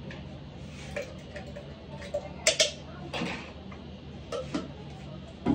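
A few sharp clicks and knocks of a steel mixer-grinder jar being handled and set on its base, the loudest a pair about two and a half seconds in. The grinder motor is not running.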